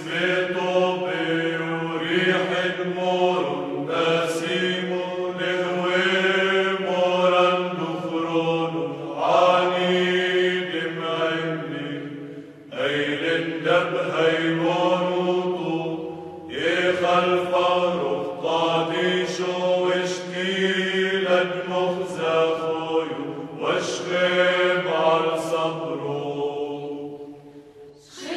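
Maronite incense hymn chanted in Syriac Aramaic: a slow, melodic sung chant in long phrases, with a brief break about 13 seconds in and a dip near the end.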